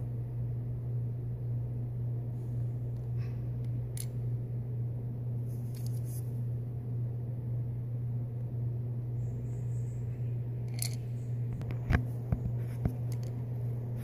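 Light handling noise of small toy figures being moved about by hand: scattered soft clicks and rustles, with a few sharper knocks near the end. A steady low hum runs underneath throughout.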